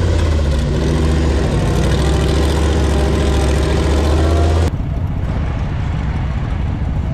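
Lifted mud truck's engine running at a steady, held rev while stuck in a deep mud hole, then an abrupt switch a little over four seconds in to a quieter, rougher engine rumble.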